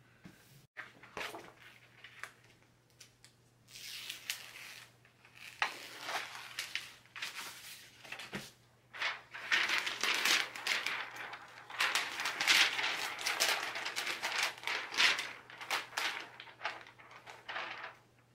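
Crinkling and rustling of a clear plastic peel-and-stick adhesive sheet being handled and laid onto the back of a jigsaw puzzle, in irregular crackly bursts. It starts about four seconds in and is loudest through the second half.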